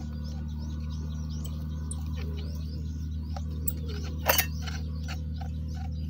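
Small birds chirping over a steady low hum. About four seconds in there is a sharp double click.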